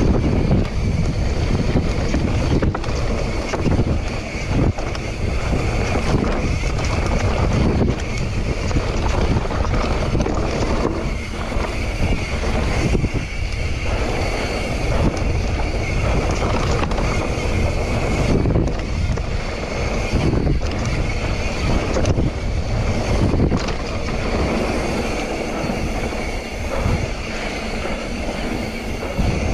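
Mountain bike descending a dirt trail: wind rushing over the action camera's microphone, with the tyres rolling on dirt and the bike rattling over bumps in frequent short knocks.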